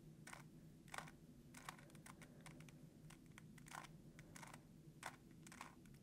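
Faint, irregular clicking of a 3x3 Rubik's-style speed cube's layers being turned by hand, about ten turns in quick succession as a layer-by-layer algorithm is executed to insert a middle-layer edge.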